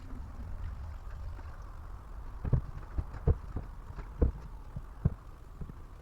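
A handful of dull, low thumps, about five, spread over a couple of seconds, above a steady low rumble.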